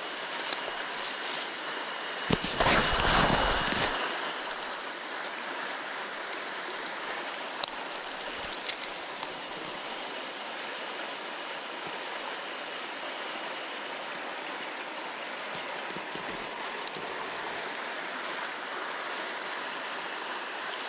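Mountain river water rushing steadily, with a brief louder burst of noise about two seconds in.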